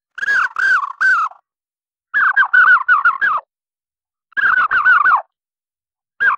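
Imitation bird chirps made from a high, squeaky human "eee" voice pitch-shifted upward. They come in four quick bursts of three to five chirps, each chirp rising then falling, with a second or so of silence between bursts; the last burst begins near the end.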